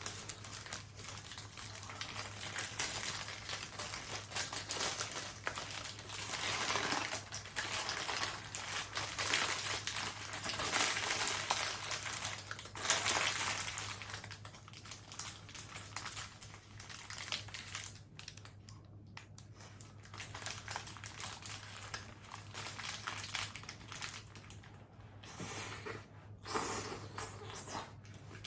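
Close-miked eating sounds: paper burger wrapper crinkling, with crunchy chewing of burger and fried nuggets, irregular and busiest in the first half.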